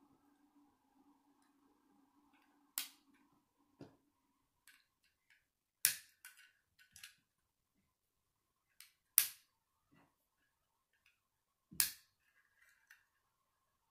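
Small plastic Lego bricks clicking and tapping as a little model van is handled, with four sharp clicks about three seconds apart and softer ticks between.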